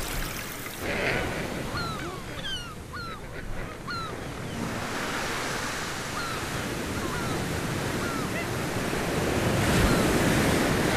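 Surf washing onto a sandy beach, with birds' short chirping calls repeated through the first two-thirds; the surf grows louder near the end.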